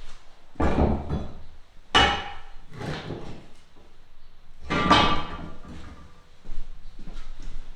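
Hammer striking bricks while a blocked fireplace is being opened up: several irregular blows a second or two apart, some with a brief ring.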